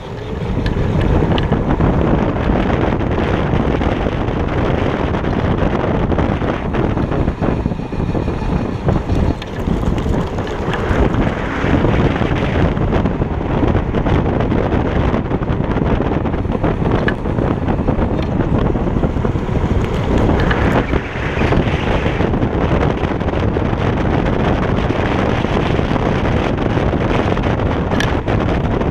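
Wind buffeting the microphone and tyre rumble from a Kaabo Wolf King GT electric scooter riding at speed on asphalt, swelling up in the first second and then holding steady.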